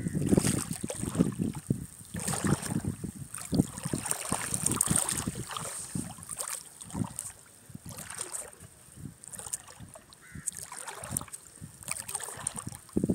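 Shallow seawater lapping and sloshing close to the microphone in uneven splashes, louder in the first half and softer after the middle.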